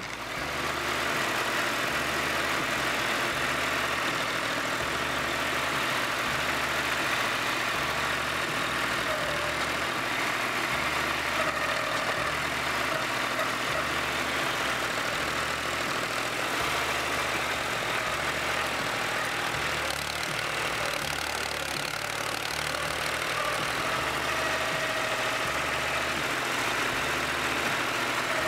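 Terraplane TD38 (Dongfeng) compact tractor's diesel engine running steadily, heard up close from the operator's seat.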